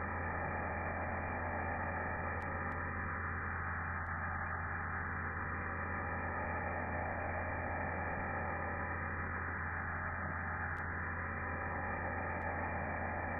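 Pressure washer running steadily, its motor and pump hum under a constant spray noise.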